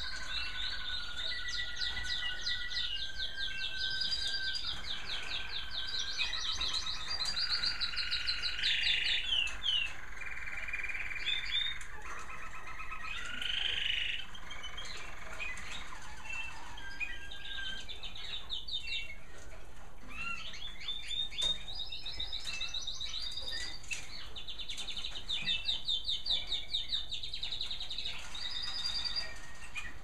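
American Singer canaries singing, several at once: long runs of fast trills and rolling warbles that overlap one another, with short lulls between phrases.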